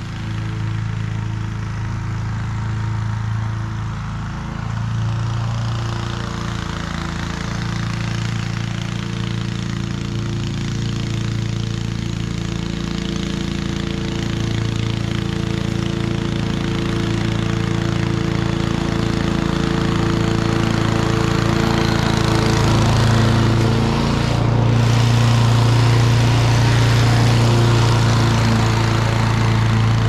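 Honda HRC216 commercial walk-behind mower's single-cylinder four-stroke engine running steadily while cutting grass, growing louder as the mower comes up close.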